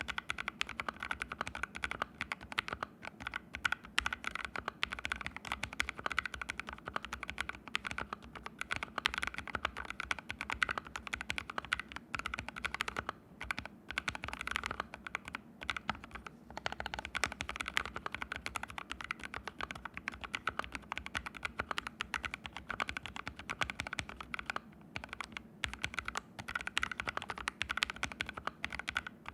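Steady, fast typing on a mechanical keyboard (ABKO AR61) fitted with fully lubed Haimu Sea Salt switches: a dense run of key clacks with a few brief pauses. The keyboard sits on a bare floor with no desk pad under it.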